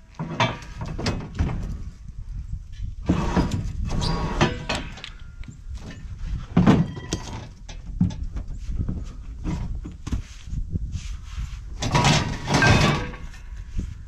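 Pieces of scrap steel flat stock scraping and clanking as they are handled and unloaded, in several bursts with pauses between, some with a brief metallic ring.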